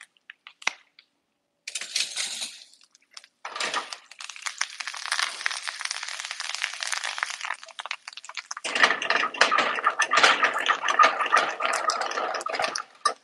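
Curry leaves, cumin, peanuts and green chillies sizzling and crackling in hot peanut oil in a frying pan, a tadka tempering. The crackle starts in short spurts, then runs on densely and grows louder and fuller from about nine seconds in as the pan is stirred.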